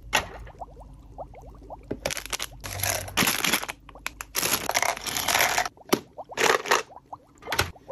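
Clear plastic packaging crinkling as it is handled, in several bursts over a few seconds. Sharp taps of small plastic cosmetic containers being set down come near the start and twice near the end.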